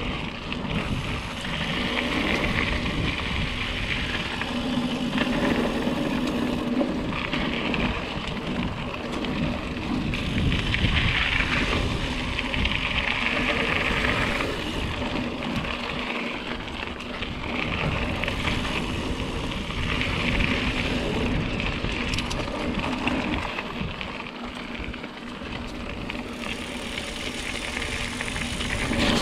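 Mountain bike ridden along a singletrack trail: steady wind noise on the microphone, tyres rumbling over rough ground and the bike rattling on bumps.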